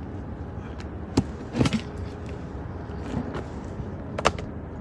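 Sharp clicks and knocks from handling a duct-taped plastic bucket as it is being opened, over a steady low rumble. One click comes about a second in, followed by a short rustling burst, and another comes near the end.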